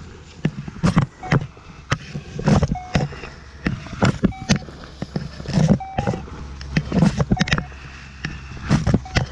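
Handling noise from a camera jostled against plastic bags, paper and clothing: rustling and scraping with irregular knocks and thuds, roughly one or two a second.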